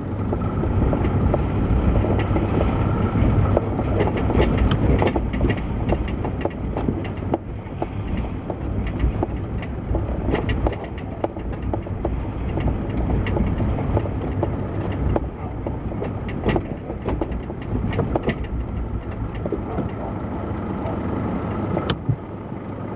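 A motor running loudly with a heavy low rumble, with many short rattles and knocks over it. A faint steady whine sits above the rumble for the first few seconds and again near the end.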